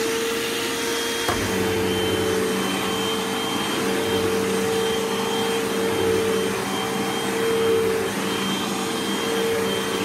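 Hoover WindTunnel upright vacuum cleaner running on carpet on a newly fitted drive belt, with a steady high motor whine. A click comes a little over a second in, and a lower hum then joins and keeps going under the whine.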